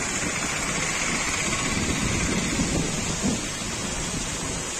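Heavy rain falling steadily on rooftops, a dense even hiss, with a low rumble swelling about halfway through.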